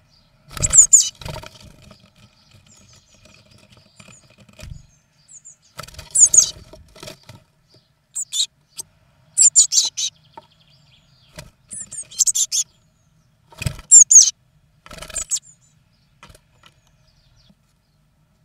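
Blue tit chicks in a wooden nest box calling in short bursts of high-pitched chirps, several seconds apart and unevenly spaced, mixed with knocks and rustles against the box.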